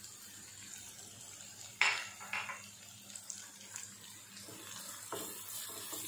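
Minced lemongrass, shallots and garlic frying in hot fat in a nonstick pan, a soft sizzle, with a sharp clink about two seconds in as chilies are scraped off a ceramic bowl with a wooden spoon. From about five seconds the spoon stirs through the pan and the sizzle grows louder.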